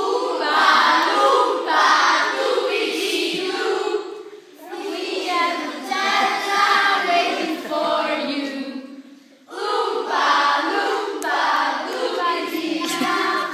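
A group of children singing together in unison, in phrases broken by short pauses about four and a half and nine and a half seconds in.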